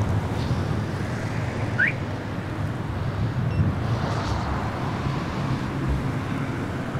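Steady background rumble of vehicles with some wind noise. A short rising chirp comes about two seconds in.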